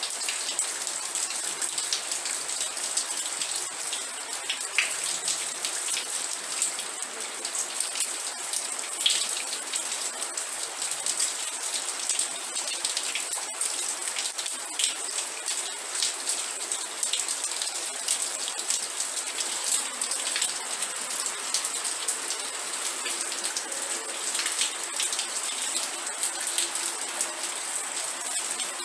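Steady rain falling, an even hiss with many close, sharp drop ticks on a hard surface.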